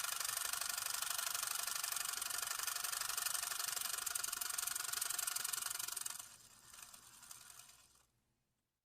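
Motion-picture film camera running: a steady, rapid mechanical clatter of the film transport, which winds down about six seconds in and stops just after eight seconds.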